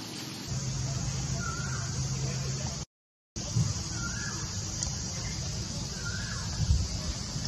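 Short, faint chirping calls repeating about every two seconds over a steady outdoor hiss. A low steady hum runs through the first part, and the sound drops out completely for a moment near the middle.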